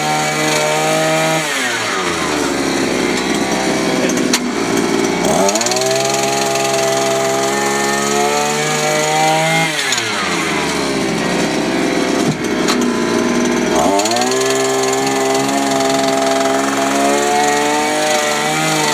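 Jackhammer running in three spells, its motor winding down when the trigger is let off and spinning back up when it is pressed again.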